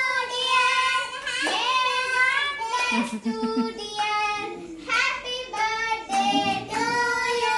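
A young girl singing a birthday wishes song of the kind taught at school, in long held notes.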